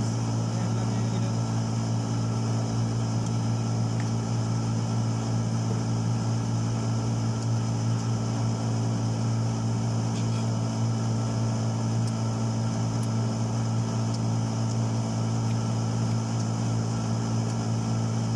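Steady machine hum with a strong low tone and overtones, unchanging in pitch and level.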